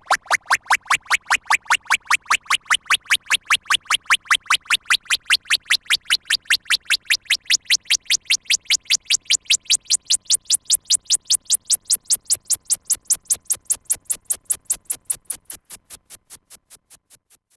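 Synthesized sci-fi electronic effect: a fast train of short beeping pulses, about five a second, climbing steadily in pitch from low to very high, then fading out near the end.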